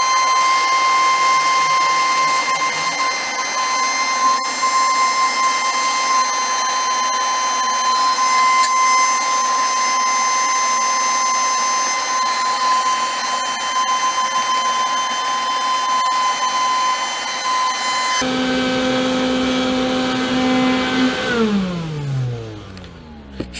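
Wet/dry shop vacuum running with a steady high whine while sucking water off the flooded floor at the base of a gas water heater through a narrow hose. About 18 seconds in its sound changes abruptly to a lower tone, and about three seconds later the motor is switched off and winds down with a falling pitch.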